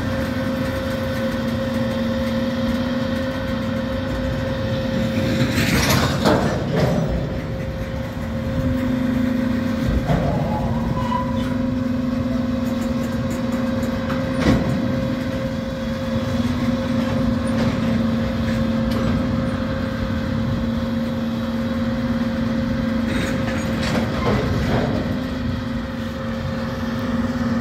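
Freight train cars rolling slowly through a grade crossing: a steady low hum with occasional clanks from the wheels and couplers, the loudest about six seconds in.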